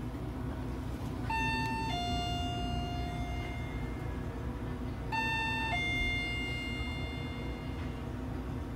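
An electronic two-note chime sounds twice, each time a higher note dropping to a lower one that rings on and fades, over a steady low hum.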